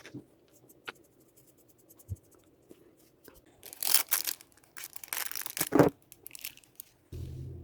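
Material being torn by hand in two noisy tearing bursts about a second apart, with crinkling and small clicks around them; a brief low hum comes in near the end.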